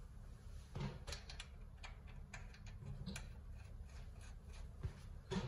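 Faint, scattered light clicks and taps of parts being handled on a truck's front suspension, over a steady low hum.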